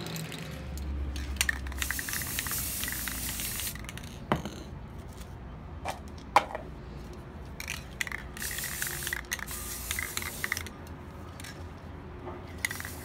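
Aerosol spray paint can spraying in several hissing bursts: one about two seconds in, then two more later on. Two sharp clicks fall between the bursts.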